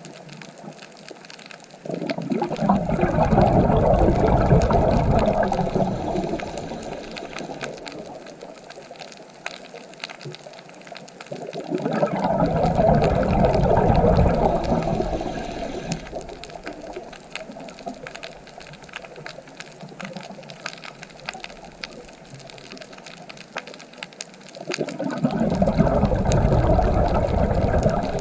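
Ocean waves washing in, three surges about ten seconds apart, each swelling quickly and fading slowly into a quieter hiss between them.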